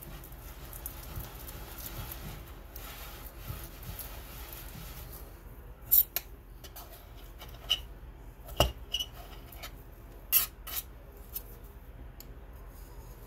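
Glass muller grinding Prussian blue pigment and linseed oil on the mulling plate, a steady soft rubbing swish; from about six seconds in it gives way to a scatter of sharp clicks and taps as the glass muller knocks against the plate and is lifted off.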